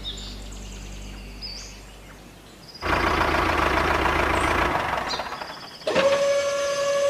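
A motor or engine sound effect: a noisy running stretch starts about three seconds in, then gives way about six seconds in to a steady high-pitched whine with overtones.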